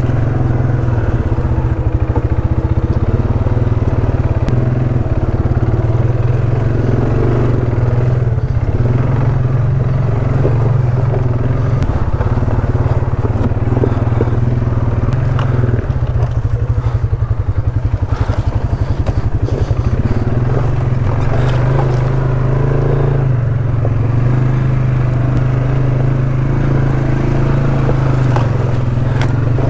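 ATV engine running steadily at an even pitch, with scattered knocks and clatter over it.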